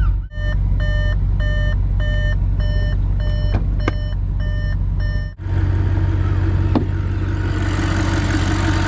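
Audi RS5's 4.2-litre V8 idling steadily, with a car's electronic warning beep repeating about twice a second over it for the first five seconds. The beeping then stops and the V8 idle goes on alone.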